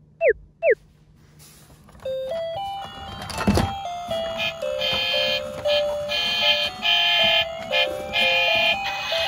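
Battery-powered toy vehicles' electronic sound units: a few quick falling chirps, then from about two seconds in a beeping tune of stepped notes. A single knock of plastic toys comes about three and a half seconds in.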